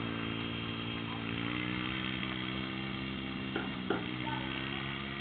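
Small engine of a youth four-wheeler running steadily as it is ridden, its pitch rising and falling a little with the throttle.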